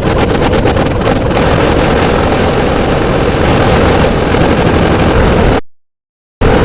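Loud, distorted, engine-like rumbling noise that cuts out to dead silence for under a second near the end, then starts again abruptly.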